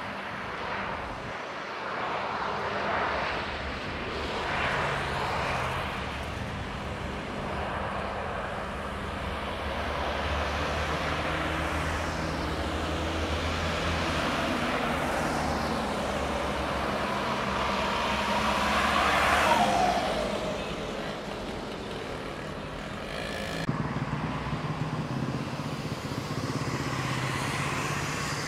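A Boeing 737-900ER jet airliner passing overhead on its landing approach. Its engine noise swells to a peak about two-thirds of the way through, with a whine that falls in pitch as it goes by, over a steady hum of road traffic.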